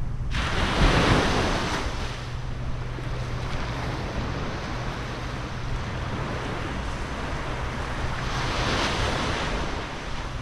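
Sea waves washing in on the shore, with two louder surges: one about a second in and one near the end. Wind buffets the microphone throughout.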